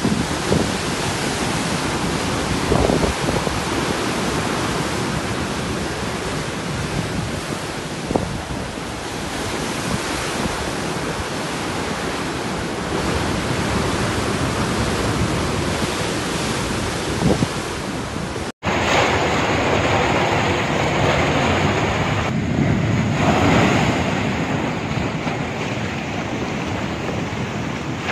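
Storm-driven sea surf breaking heavily, a steady rushing noise with wind on the microphone. About two-thirds through it cuts abruptly to louder, closer surging seawater that swells and falls.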